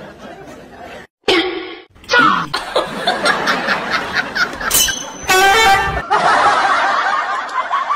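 Comedy sound effects: laughter and, about five seconds in, a short honk like a horn.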